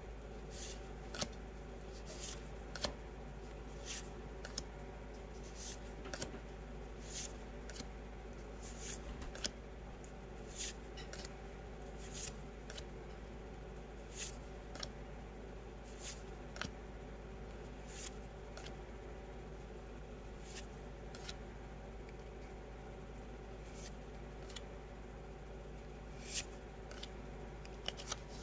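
Magic: The Gathering trading cards being slid and flicked one at a time from the front to the back of a small stack in the hand. It gives short, crisp paper scrapes, irregular at about one or two a second, over a steady low hum.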